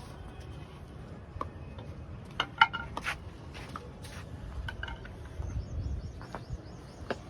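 Farmyard sounds: scattered knocks and clatters, the sharpest about two and a half seconds in, with small birds chirping briefly near the end over a low rumble.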